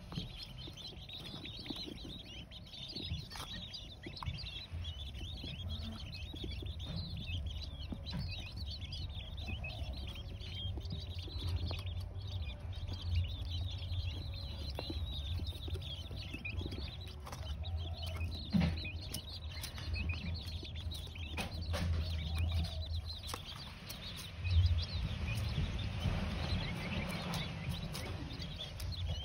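A group of three-week-old blue-breasted quail (king quail) chicks cheeping in many short, quick high chirps while they feed, over a steady low rumble.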